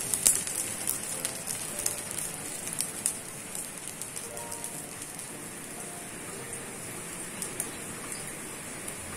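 Fried rice sizzling in a hot pan. Dense crackling in the first few seconds thins out to a steady, faint hiss.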